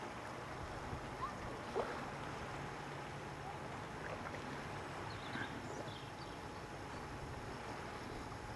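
Steady outdoor wash of water and wind, with a low steady hum for most of it that fades about six seconds in, and a few short, high bird chirps.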